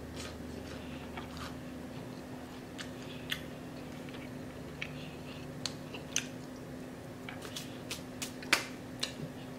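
Close-miked chewing of crispy fried catfish fillet, with scattered sharp clicks and crunches that come more often in the second half, the loudest near the end.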